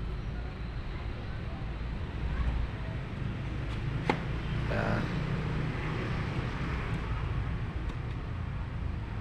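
Low steady outdoor rumble, with one sharp metallic knock about four seconds in as the booth table's metal poles are handled and fitted into their holes in the tabletop.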